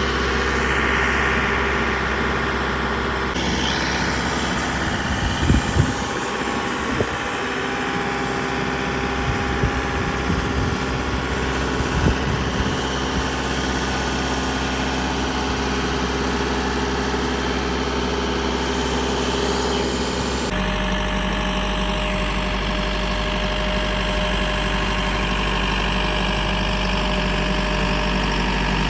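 A vehicle engine running steadily, with a few knocks in the first half. Its tone changes abruptly twice, about three seconds in and about two-thirds of the way through.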